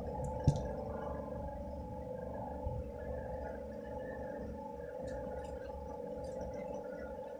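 A steady hum of several held tones, with one sharp click about half a second in and a faint knock a couple of seconds later.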